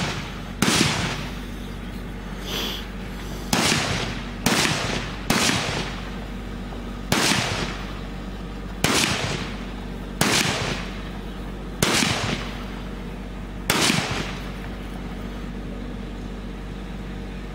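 Rifle shots fired one at a time, about nine in all, spaced roughly one to two seconds apart, each followed by a short echo. The firing stops about fourteen seconds in.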